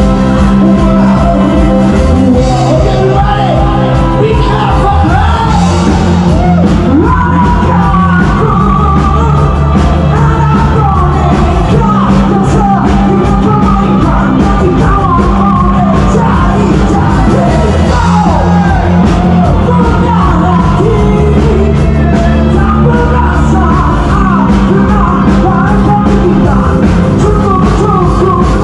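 Live rock band playing loudly, with a singer's voice and drums keeping a steady beat.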